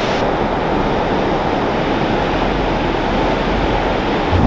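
Ocean surf breaking and washing onto a sandy beach: a steady rush of waves.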